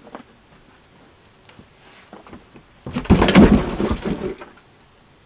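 A loud burst of clattering knocks and thuds about three seconds in, lasting over a second, after a few faint taps.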